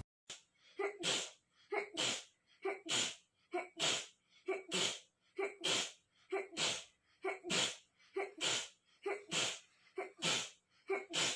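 A young woman's allergy sneezes in an even, rapid run of about a dozen, roughly one a second. Each is a short catch of breath followed by a sharp, wet burst.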